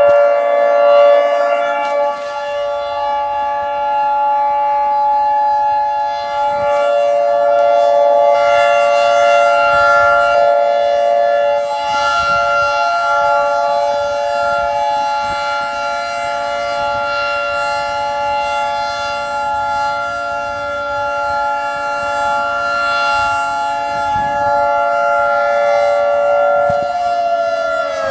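Outdoor civil-defense warning siren sounding its steady alert tone for a scheduled test, several pitches at once, slowly swelling and fading in loudness. In the last few seconds the pitch starts to fall as the siren begins to wind down.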